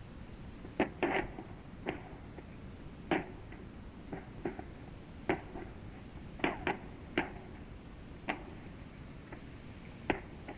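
Irregular sharp pops and cracks from the burning ammunition dump cooking off some 200 m away, roughly one or two a second with no steady rhythm, over the steady hiss of an old tape recording.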